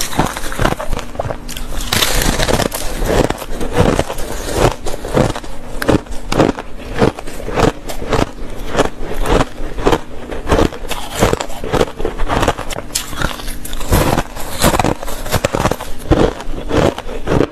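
Close-up chewing of crushed ice: a quick run of crisp crunches, about two to three a second.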